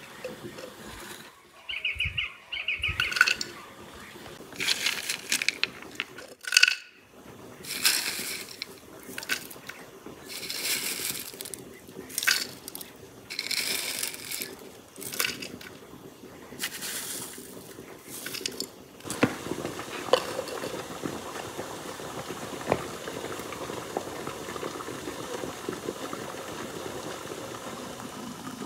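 Dry herbs, flowers and rosehips rustling as pinches are dropped into a glass teapot, with light clinks. About two-thirds of the way in, water from a samovar tap starts running steadily into the teapot.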